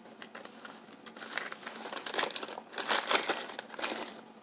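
A bunch of keys jangling and clinking as they are picked up and sorted through by hand, in clusters that are loudest around three seconds in.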